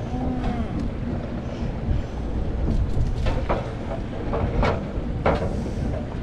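Sportfishing boat's engine rumbling steadily, mixed with wind and sea noise, with a few short sharp knocks or splashes about three to five seconds in.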